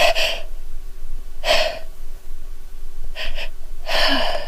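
A woman's heavy breaths and gasps, about four of them a second or so apart with a quick double breath near the three-second mark, as her nose tickles on the verge of a sneeze.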